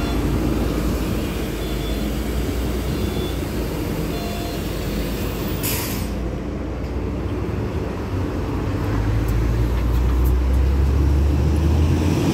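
LiAZ-6213.65 articulated diesel bus running at a stop, with a short sharp hiss of compressed air from its air brakes releasing about six seconds in. From about nine seconds its engine rumble grows louder as the bus pulls away.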